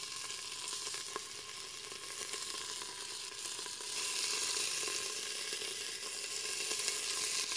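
Beef cubes sizzling as they sear in hot olive oil in a stainless steel pressure cooker pot, browning the first batch of stew meat. The sizzle grows louder about four seconds in as more cubes go into the oil.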